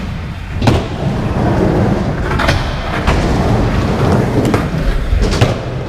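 Skateboard wheels rolling through a skate bowl, a steady low rumble, broken by several sharp clacks and knocks of the board.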